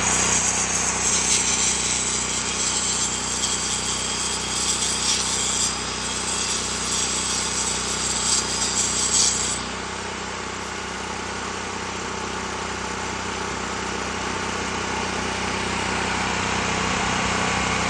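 A power tool working wood, giving a continuous noisy whirr with a bright hiss on top. About halfway through the hiss drops away, leaving a steadier, slightly quieter run.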